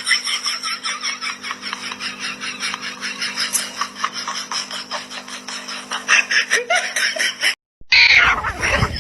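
Rapid, rhythmic laughter over a steady low hum. It cuts off abruptly near the end, and after a brief gap a louder, rougher sound begins.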